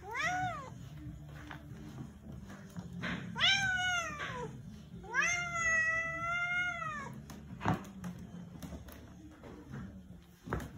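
Siamese cat meowing three times: a short rising-and-falling meow at the start, a second one about three and a half seconds in, and a long drawn-out meow of about two seconds in the middle.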